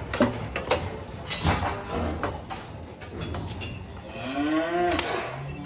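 Cattle mooing: one long call that rises and then falls in pitch, about four seconds in, with scattered sharp knocks before it.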